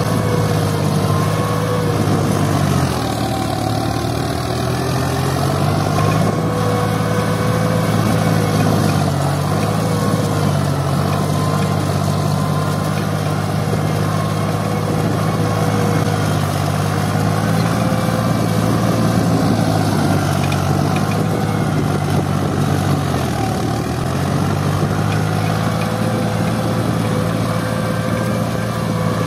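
Turbocharged Fiat 480 tractor's diesel engine running under heavy load as it pulls a three-bottom plough through hard, dry ground. The engine speed sags twice, about three seconds in and again some twenty seconds later, as the plough bites, then picks back up.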